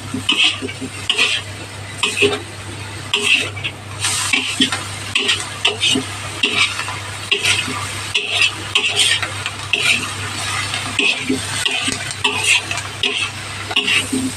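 Utensil stirring and scraping through katuray leaves and grated coconut in a frying pan, in repeated strokes a bit more than one a second, over a steady sizzle.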